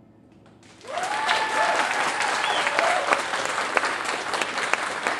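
Audience applauding with dense clapping that starts about a second in, with a few cheering voices over it in the first couple of seconds.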